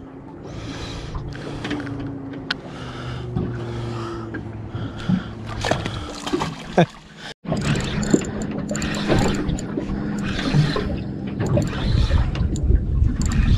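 Boat engine idling with a steady low hum under wind and water noise. The sound breaks off sharply about seven seconds in, then a similar engine hum returns with a heavier low rumble near the end.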